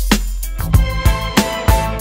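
Background music with a steady drum beat over a strong bass and held tones.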